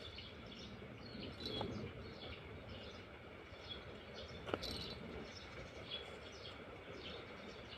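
Faint outdoor ambience: scattered short bird chirps and insect calls over a low hiss, with one sharp click a little past halfway.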